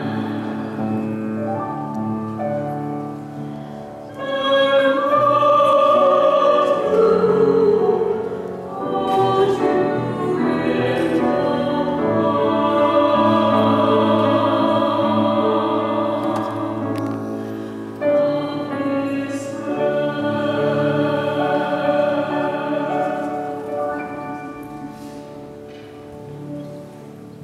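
A man and a woman singing a wedding song as a duet in long, held phrases. A new phrase comes in strongly about eighteen seconds in, and the singing fades away near the end.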